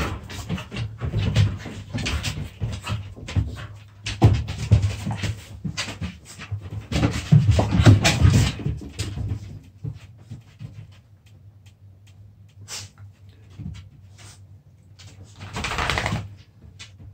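Two puppies play-fighting: dog vocalisations and scuffling, busy and irregular for the first nine seconds or so, then quieter, with a short loud flurry near the end.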